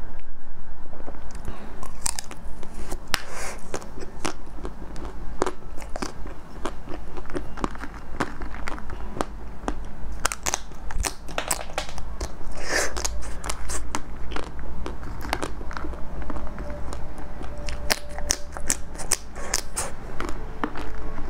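Close-up biting and chewing of frozen matcha-coated ice cream bars: the hard coating cracks into many sharp, irregular crunches and crackles as it is bitten and chewed.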